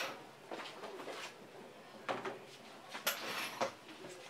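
A No. 2 pencil scratching in short, irregular strokes over a paper pattern wrapped on a bamboo cup, tracing the design onto it, with a few light knocks as the cup is turned in the hand.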